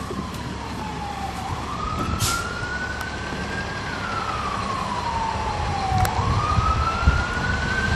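Emergency-vehicle siren wailing, its single tone sweeping slowly down and back up about every four seconds, heard over the low rumble of the diesel transit bus from its rear seats. A short hiss sounds about two seconds in.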